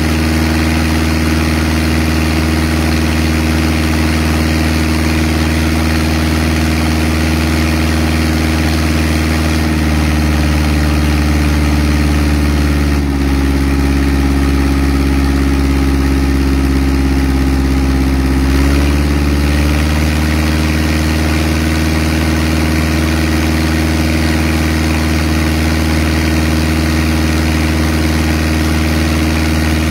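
Engine-driven deck water pump running steadily, feeding a high-pressure wash-down hose, with the hiss of the water jet over it. The engine note dips for several seconds midway, then comes back up.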